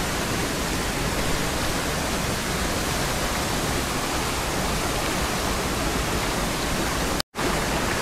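Steady rush of a knee-deep stream at a small waterfall, flowing with a strong current. The sound cuts out for a split second near the end.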